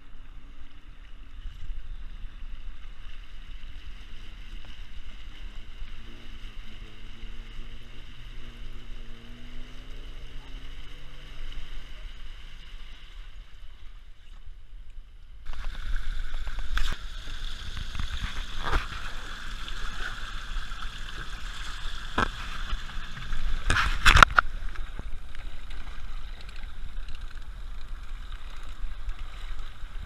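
Four-wheel drive pushing through a flooded creek, heard from inside the cab: the engine running low under the wash of water. About halfway through, the sound switches to a louder rush of floodwater heard from outside, with several sharp knocks.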